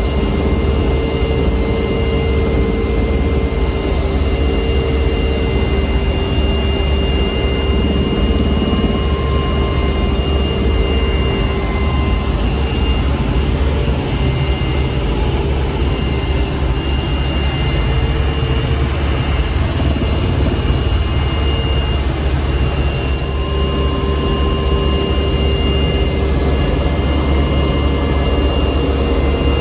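Cabin noise of a PZL W-3 Sokół helicopter in flight: its twin turboshaft engines, rotor and transmission give a loud, steady drone with a steady high whine on top.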